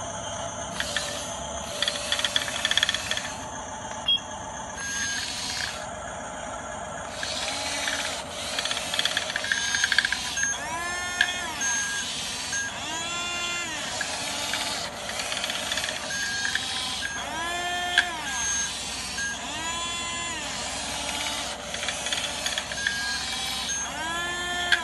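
Small electric drive motors of an RC bulldozer whining as they work, repeatedly spinning up and winding down so that the pitch rises, holds and falls about every two seconds.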